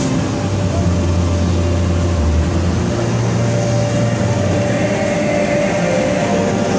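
Electric air blowers keeping an inflatable bounce house inflated, running with a loud, steady drone and a low hum underneath.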